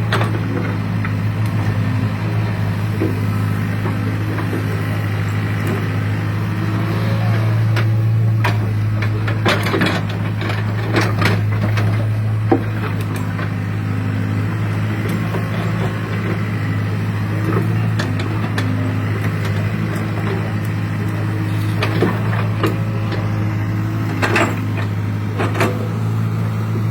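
Hitachi excavator's diesel engine running steadily under digging work, with scattered sharp knocks and clanks, a cluster of them about a third of the way in and a few more near the end.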